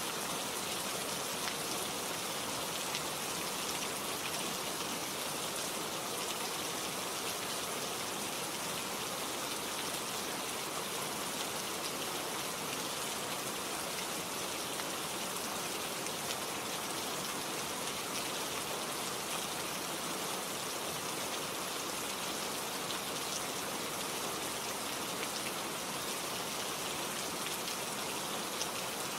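Steady rain falling, an even hiss of many drops hitting a surface.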